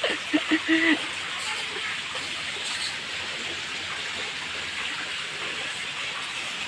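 Water gushing steadily from an inlet pipe and splashing into a concrete koi pond.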